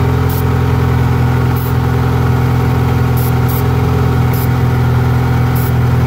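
Honda engine idling steadily with a loud exhaust leak, its idle running high, which the mechanic suspects is a vacuum leak. About six short spray hisses come over it as aerosol is sprayed around the vacuum lines to test for the leak.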